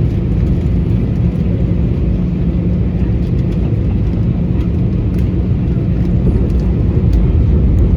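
Airbus A320-family airliner, a steady low rumble of jet engines and rushing air with a constant hum underneath.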